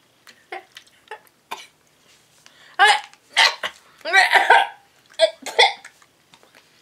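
A boy coughing and gagging in a run of short, loud bursts from about three seconds in, a reaction to a foul-tasting grass-flavoured jelly bean; fainter short noises come before.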